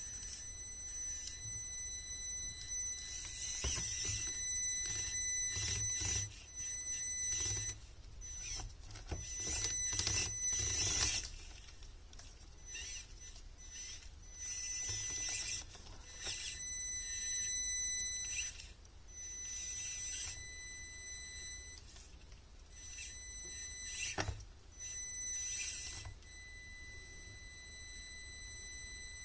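A 1/43 micro RC crawler's tiny electric motor and gearbox whining in stop-start bursts as it crawls over rocks. The whine holds one high pitch and cuts in and out many times with the throttle.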